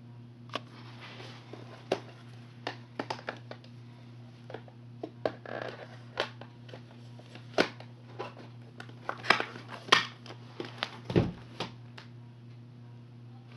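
Handling noise: scattered sharp clicks, taps and short crinkling rustles of plastic tape cases being handled, with a low thud about eleven seconds in, over a steady low electrical hum.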